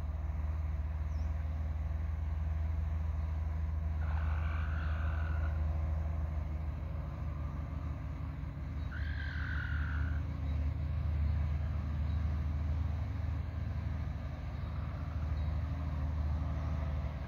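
Red junglefowl rooster crowing twice, each crow a little over a second long and about five seconds apart, over a steady low rumble.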